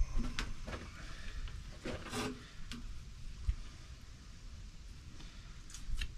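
Knife work on an armadillo carcass being skinned: irregular small scrapes, cuts and knocks against the hide and the board, clustered about two seconds in, over a low rumble.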